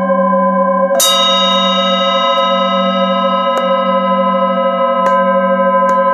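Polished metal singing bowls struck one after another with a mallet, their many tones overlapping and ringing on, the lowest one wavering. A firm strike about a second in is the loudest, followed by three lighter strikes.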